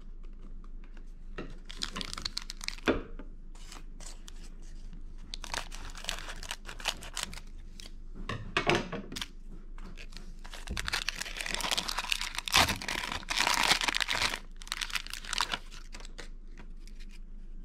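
Wrapper of a Topps basketball card pack being crinkled and torn open by hand, in several bursts of crackling, loudest in the second half.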